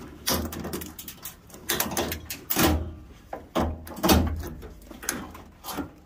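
Irregular clunks, clicks and rattles of plastic and sheet-metal parts as gloved hands pull at the wiring inside a front-load washing machine's cabinet, with a few louder knocks.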